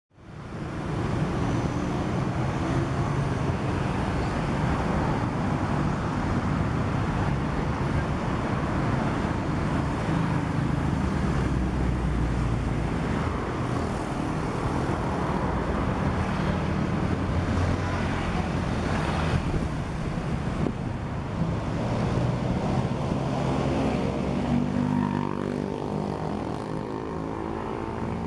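Motor vehicle engine running steadily amid traffic noise, its pitch rising near the end as it speeds up.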